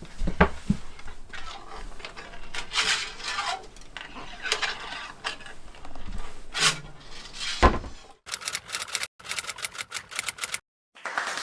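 Clicks, taps and light metallic rattles of a tool and small parts being handled in a cramped space, then a quick run of sharp ticks; applause-like clapping sets in near the end.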